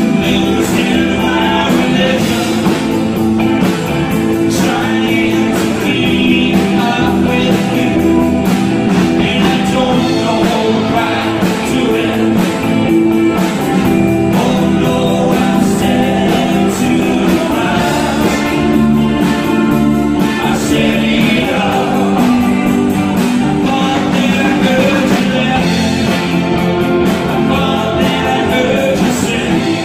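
Live rock band playing: a man singing over electric guitars, bass guitar and a Gretsch drum kit with steady cymbal and drum strokes.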